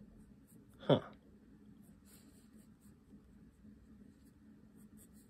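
Pencil sketching on a sketchbook page: faint, scattered scratchy strokes. A short vocal sound falling in pitch comes about a second in.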